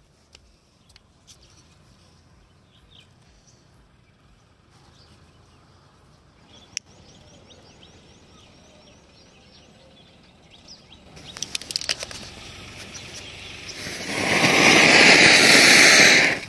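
Diwali anar (flower-pot firework) lighting: first a scatter of faint clicks, then sputtering crackles about eleven seconds in as the fuse catches, building into a loud, steady hiss as the cone sprays a jet of sparks.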